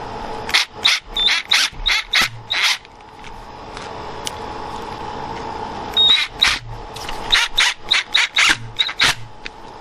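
Screws being driven into a door hinge: two runs of short, sharp clicks at about three a second, with a steady hum underneath.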